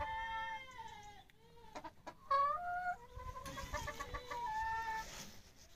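Hens calling: several drawn-out calls with a quick run of clucks in the middle.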